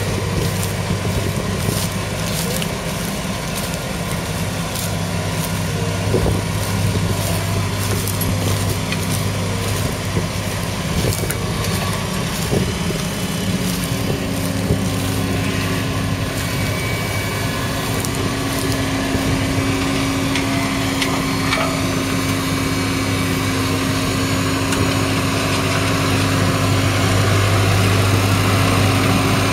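Kubota M7171 tractor's 6.1-litre four-cylinder diesel engine running steadily under load while pulling a reversible plough, with scattered clicks and knocks in the first half. Its note shifts a little about halfway through, as the plough is lifted out for the headland turn.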